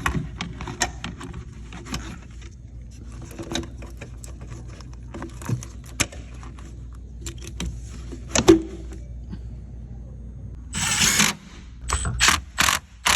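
Hand tools clinking and knocking against metal parts. Near the end, a ratchet wrench is spun in several short bursts.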